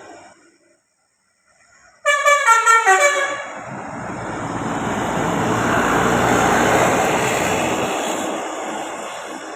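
A bus's telolet basuri musical horn plays a quick run of stepped notes about two seconds in, then the bus passes by, its engine and tyre noise swelling and fading away.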